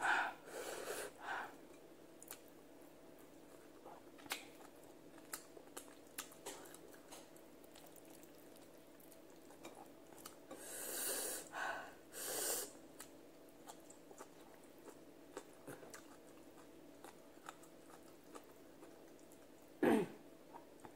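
Close-up eating sounds: quiet chewing with many small wet mouth clicks. There are a few louder, noisy bursts at the start and again about ten to twelve seconds in, when a mouthful of sautéed green mustard leaves goes in. A single short, sharper sound comes near the end.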